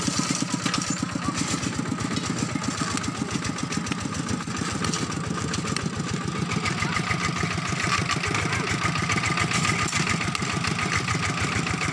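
Single-cylinder diesel engine of a two-wheel walking tractor running steadily with an even, rapid chugging.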